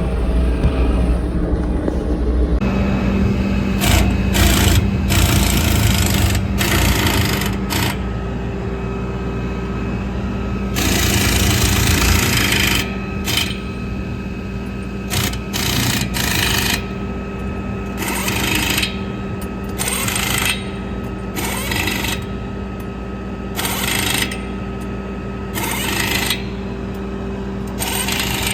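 Impact wrench running the lug nuts onto a large grain-cart wheel's studs in many short bursts, some briefly and some for a second or two. An engine runs steadily underneath and speeds up about two and a half seconds in.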